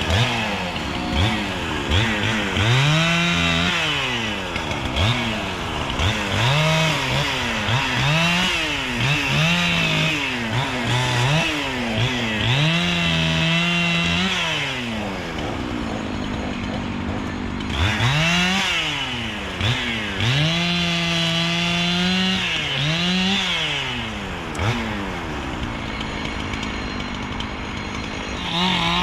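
Chainsaw revving up and falling back again and again as it cuts limbs of a felled cedar tree, settling to a lower, steadier idle for a few seconds twice.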